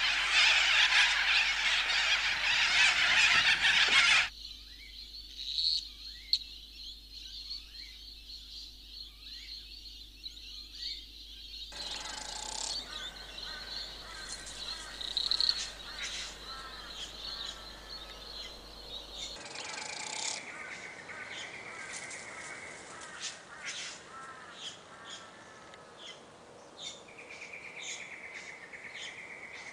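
Outdoor nature ambience of birds chirping and calling. It opens with about four seconds of a louder, dense wash of noise, then drops to quieter chirps and short high calls, and the background changes abruptly a few times as separate recordings are joined.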